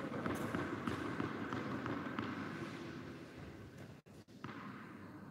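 Spectators clapping and murmuring in a reverberant indoor tennis hall. The noise swells at once, fades over a few seconds, and cuts out briefly about four seconds in.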